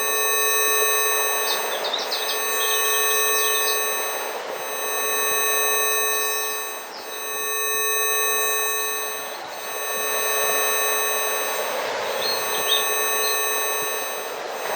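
A stack of steady electronic pure tones (a Rife healing-frequency track) sounds together, swelling and fading in slow waves every two seconds or so. Beneath it runs a soft rushing nature background, with birds chirping in short bursts a few times.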